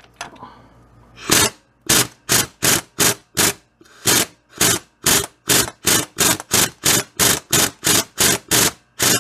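Impact wrench driven in about twenty short trigger bursts, roughly three a second, running the forcing bolt of a harmonic balancer puller to draw the crank pulley off a 3400 V6.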